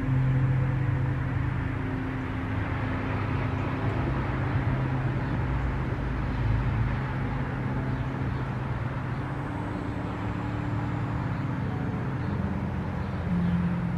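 A motor running with a steady low hum, its pitch stepping up near the end.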